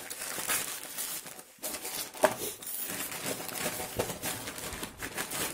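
Plastic courier mailer and foil pouch crinkling and rustling as they are handled and opened by hand, in short irregular rustles.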